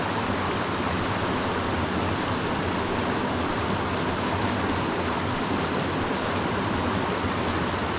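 Small mountain creek rushing over rocks and a little waterfall: a steady, even rush of water.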